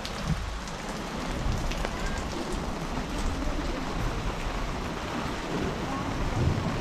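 Steady rain falling on wet pavement and plastic-covered market stalls: an even hiss with scattered drip ticks and a low rumble underneath.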